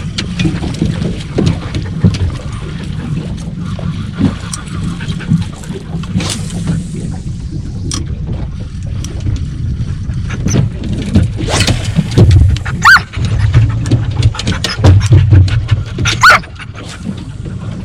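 Steady low rumble of wind and water around a small aluminium fishing boat, with many sharp clicks and heavier knocks in the second half, and two short high-pitched whines near the end.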